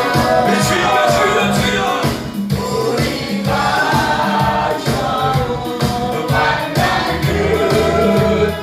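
A group of voices singing a gospel song together in unison, with a band accompaniment keeping a steady beat.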